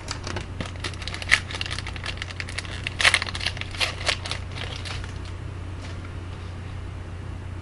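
Wrapper of a hockey trading-card pack crinkling and tearing open in a flurry of sharp crackles, which die away about two thirds of the way through. A low steady hum runs underneath.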